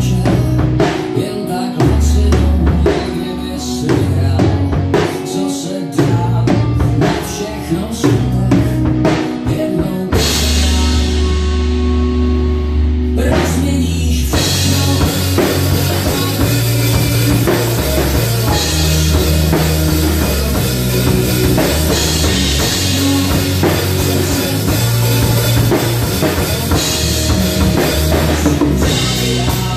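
Acoustic drum kit with Istanbul cymbals played along to a pop-rock song recording with vocals. Sharp kick, snare and tom hits for the first ten seconds, a lighter passage with held tones about ten seconds in, then a steady cymbal wash over the full beat from about fourteen seconds.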